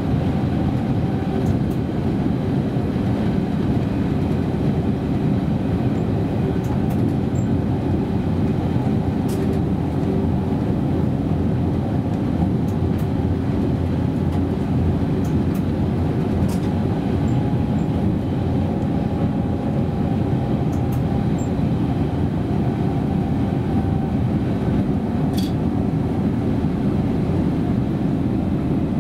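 Berlin S-Bahn electric train running along the track, heard from inside the driver's cab: a steady rolling rumble with a faint motor hum, and a few faint ticks.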